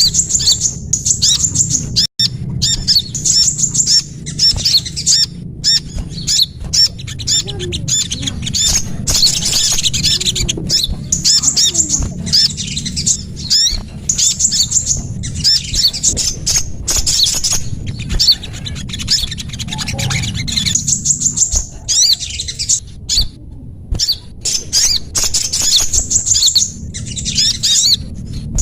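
Lure recording of small songbirds: rapid runs of high, thin chirps and trills, repeated over and over, over a steady low hum.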